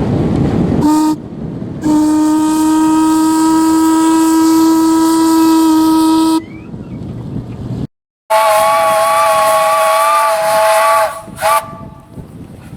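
Steam whistles blowing over a hiss of steam: a short toot, then a long steady blast of about four seconds on one low note. After a short break comes a higher chord of several notes for about three seconds, with a brief toot near the end.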